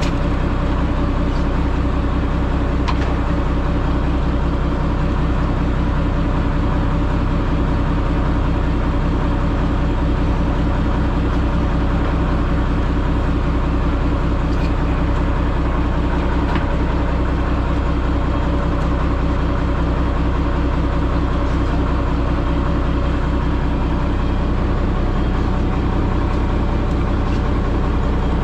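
Fishing boat's engine running steadily at a constant speed, with a strong low hum.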